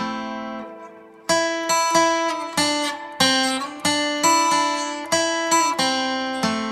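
Music: acoustic guitar playing plucked notes and chords that ring and decay. The playing dies away about a second in, then starts again with a steady run of plucked notes.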